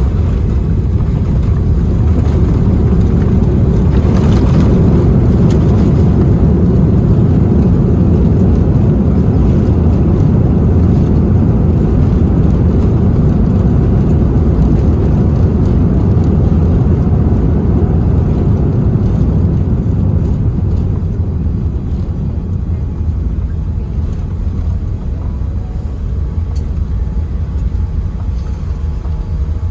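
Boeing 787-10 on its landing rollout: a loud, steady low rumble that slowly eases over the last several seconds as the aircraft slows.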